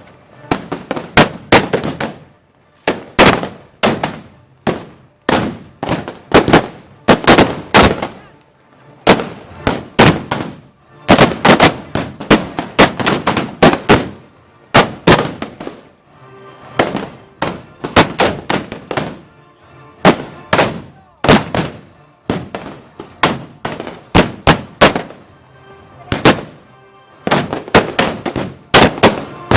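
Festival arquebuses firing blank powder charges, dozens of sharp shots in rapid, irregular clusters with brief pauses between. Faint band music is heard in the gaps.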